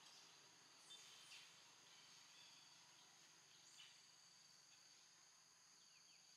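Faint outdoor ambience: a steady high-pitched drone of insects, with a few short chirps about a second in and again near four seconds.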